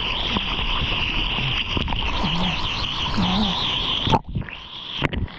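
Water rushing and splashing against a surfboard-mounted action camera while paddling through small waves, with a few short low pitched sounds in the hiss. About four seconds in the camera is pushed under and the sound turns suddenly muffled and dull.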